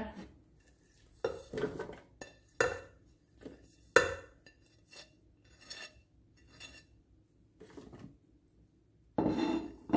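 Chopped onion, green chillies and coriander being scraped off a ceramic plate into a plastic food-processor bowl: a string of short clinks and knocks of crockery and utensil, the loudest about four seconds in.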